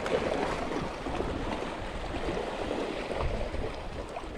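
Small sea waves washing over and draining off the rocks at the water's edge, a steady rush of surf and foam.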